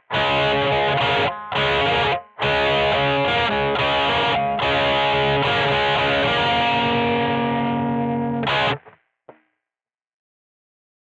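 Squier Vintage Modified Jaguar electric guitar played with heavy distortion: chords in short phrases with brief breaks, ending on a held chord that is cut off sharply about nine seconds in, followed by a short click.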